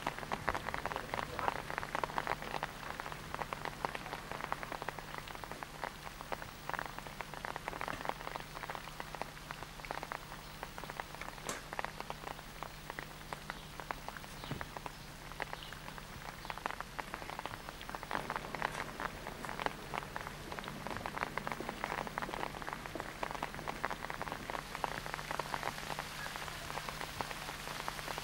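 Steady rain falling, a dense scatter of small drop ticks, with a low steady hum underneath.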